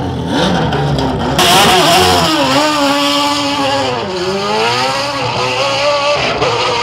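Open-wheel single-seater race car launching off the start line about a second and a half in and accelerating away, its engine pitch rising, dipping near the middle and rising again.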